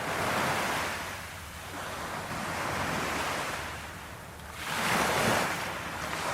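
Sea waves washing ashore in slow surges, swelling and fading about every two to three seconds, with some wind on the microphone.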